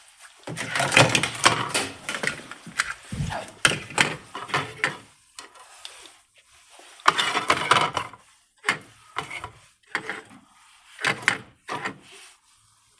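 Hands handling and prying at a plastic smoke detector close to the microphone: irregular clicks, knocks and scraping, dense for the first five seconds with a low thump about three seconds in, then a short lull and more separate knocks.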